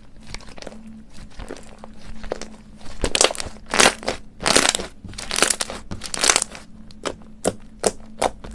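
Slime being squeezed and pressed by hand, giving sticky crackles and small popping clicks; five louder crackling squishes come in a row about halfway through, then sharp single pops near the end.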